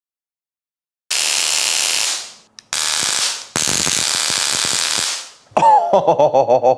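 Home-built handheld high-voltage stun gun arcing between its electrodes in three loud bursts of harsh crackling buzz, the first about a second long and the last about two. Near the end a short wavering, pitched sound, like a voice, follows.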